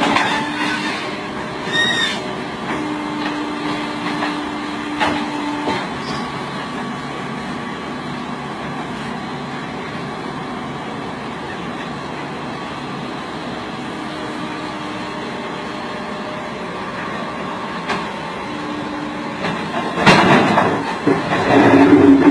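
Hydraulic excavator's engine and hydraulics running steadily, with a whining tone that comes and goes as the arm swings a heavy boulder. Near the end comes a loud rough clatter as the boulder drops into a site dumper's steel skip.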